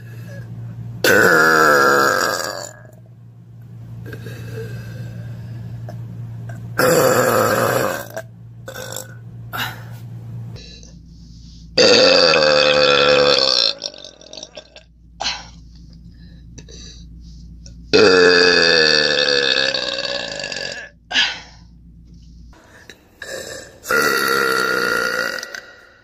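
A woman burping loudly, about five long drawn-out belches one after another, each lasting a second or two with a deep, wavering pitch.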